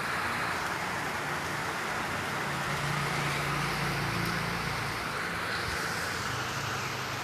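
Heavy rain falling with a steady hiss. Through the middle few seconds a low engine hum rises slightly and fades.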